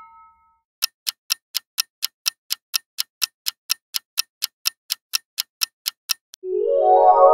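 Clock-tick sound effect for a quiz countdown timer, about four even ticks a second as the timer counts down to zero. Near the end the ticking stops and a bright, ringing chime-like sound of several tones begins.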